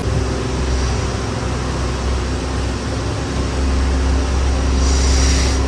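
A steady low mechanical hum with faint steady tones above it. A brief high hiss comes about five seconds in.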